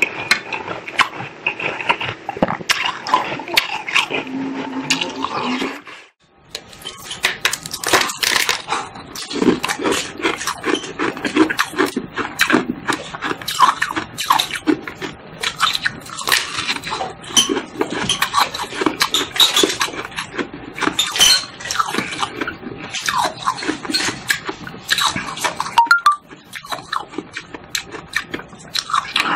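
Close-up crunching and chewing of ice. After a brief break about six seconds in, the rest is repeated crackling bites into a frosty block of ice frozen in the shape of a water bottle.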